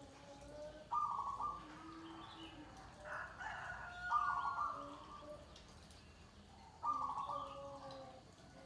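Zebra doves (perkutut) cooing: three repeated coo phrases, about three seconds apart, each a short run of stepped notes.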